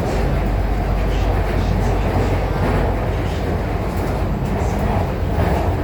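Steady running rumble of a Guangzhou Metro Line 5 linear-motor train moving between stations, heard from inside the car.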